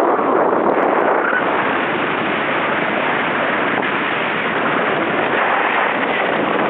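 Steady, loud rushing noise of wind on the microphone during a snowboard run, even throughout with no clear pitch or rhythm.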